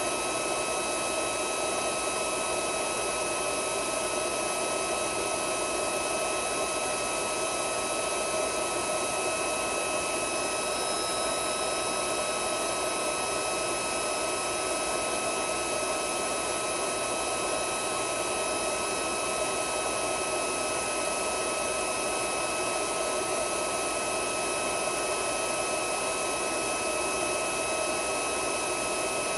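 A 1000 W magnetic induction heater running steadily as its coil heats a rusty nut: an even fan-like hiss with a steady high whine.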